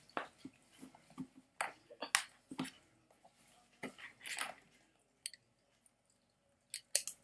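Toy packaging being cut and handled: scattered sharp clicks and snips with brief plastic rustles, as scissors cut the ties holding a doll in its box.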